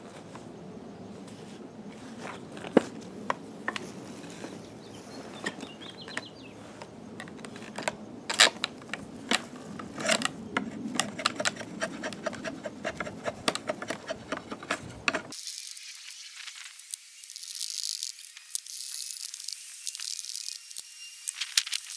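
Draw knife shaving a wooden hammer handle clamped in a shave horse: irregular scraping with many scattered clicks and knocks. About two-thirds of the way through, the sound changes abruptly to a thin high hiss with faint high tones.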